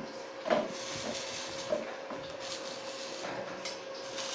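Knocks and clatter from work on a corrugated metal roof and its steel frame: one loud sharp knock about half a second in and a smaller one near two seconds, over a steady hiss.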